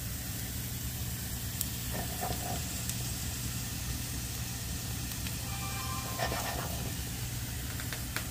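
Cumin seeds, sliced garlic and curry leaves sizzling steadily in hot oil in a frying pan, with a few faint pops: the tempering (chunk) for dal. A steady low hum runs underneath.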